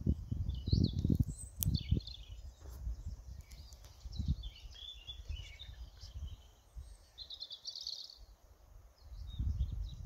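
Small songbirds chirping: scattered short high calls, with a brief trill of song about three-quarters of the way through. Bursts of low rumble near the start and again near the end.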